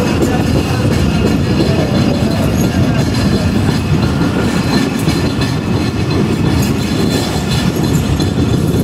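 Pak Business Express passenger train running along the track, heard from the carriage side: a steady rumble of wheels on the rails.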